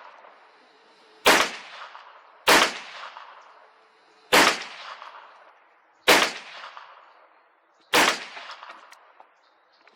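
Five single shots from a TNW Aero Survival Rifle, a 9mm semi-automatic carbine, fired one at a time at a slow, uneven pace, each with an echo that dies away over about a second.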